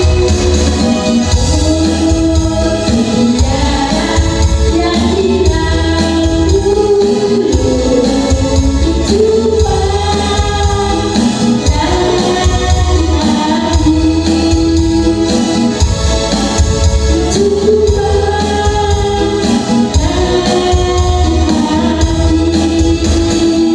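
Loud music with singing, a held, wavering vocal melody over a steady heavy bass.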